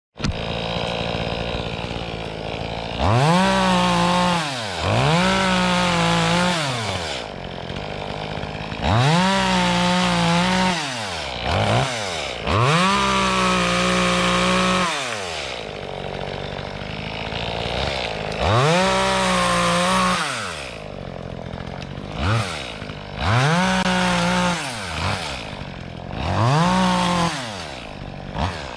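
Small 25cc two-stroke chainsaw revved to full throttle about eight times, each burst lasting a second or two, and dropping back to idle in between as tree limbs are cut up.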